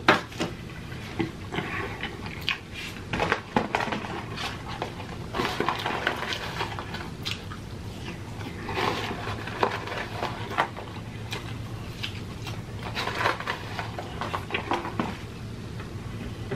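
Close-up eating sounds: biting, chewing and crunching of fried food, with small clicks and rustles of handling, coming in clusters every few seconds over a low steady hum.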